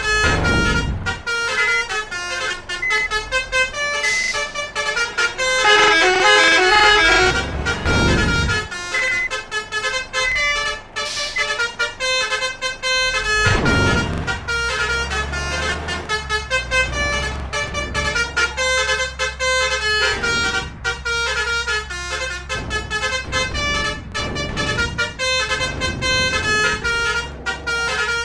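Basuri multi-trumpet 'telolet' musical horns on trucks and buses, playing quick repeating melodies almost without pause. Engines rumble as vehicles pass by, several times, and a steady engine rumble sets in about halfway through.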